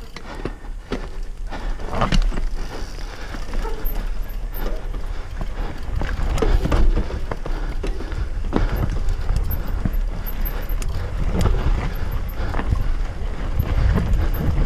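Mountain bike ridden fast down a rough dirt forest trail: tyres rumbling over dirt and roots, with frequent knocks and rattles from the bike over a steady low rumble.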